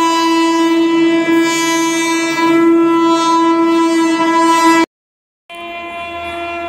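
A locomotive horn blowing one long steady note, cut off abruptly for about half a second near the end and then sounding again more quietly.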